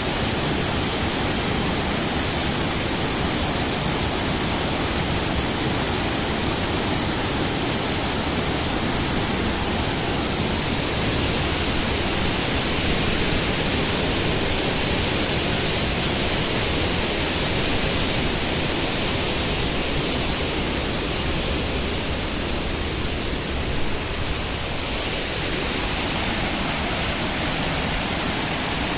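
Rushing water running strongly and freely, a steady dense roar of flowing water.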